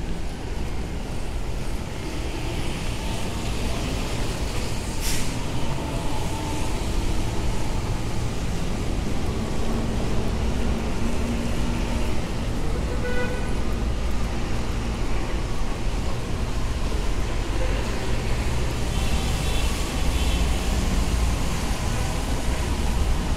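City street traffic: a steady low rumble of cars, buses and trucks driving past, with a short sharp hiss about five seconds in.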